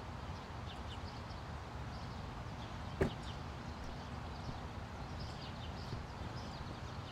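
Outdoor ambience: small birds chirping over a steady low hum, with one sharp knock about three seconds in.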